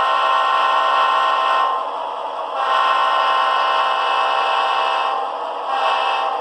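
Sampled Leslie RS5T five-chime air horn played through a model locomotive's Soundtraxx Tsunami sound decoder: a held chord of several tones. It sounds in three blasts, breaking off about a second and a half in and again about five seconds in.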